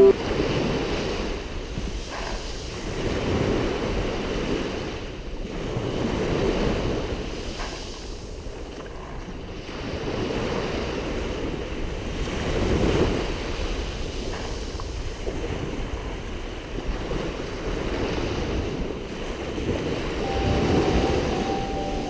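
Small Mediterranean waves breaking and washing up a fine-pebble beach, surging and easing every few seconds, with wind on the microphone.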